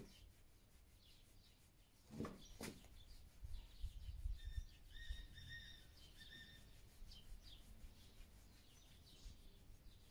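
Faint small birds chirping, with a few held notes about halfway through. Two brief knocks about two seconds in.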